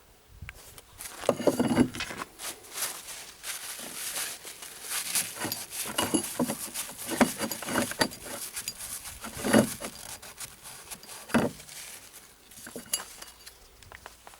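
Metal parts of a Copeland compressor clinking, knocking and scraping as it is dismantled by hand, in irregular strokes with a few louder knocks. The parts come from around a crankshaft bearing that is scored from running low on oil.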